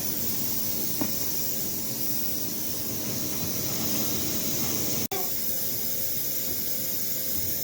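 Steady hiss of industrial plant noise with a faint low hum under it, dropping out for an instant about five seconds in.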